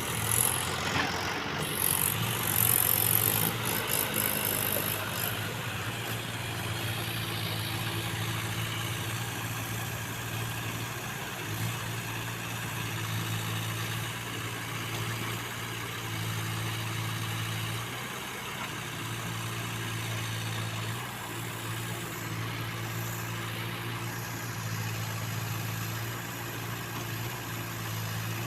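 Diesel engine of a Case 851 EX backhoe loader running steadily at low, even speed, with a brief hiss in the first few seconds.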